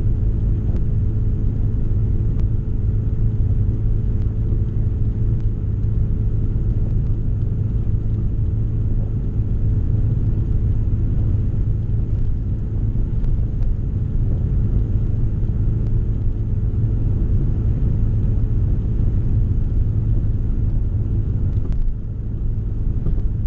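Cabin drone of a 1990 Honda Civic's D16A6 engine through a catless 2 1/4-inch straight-pipe exhaust with header, cruising steadily at about 35 mph on light throttle. It is a steady, deep drone with road noise, easing slightly for a moment near the end.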